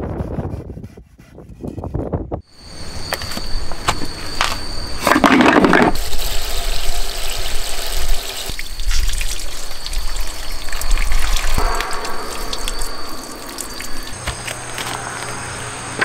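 A handsaw cutting driftwood in even strokes for the first couple of seconds. Then a garden hose nozzle sprays water steadily onto driftwood in a plastic storage box, rinsing it.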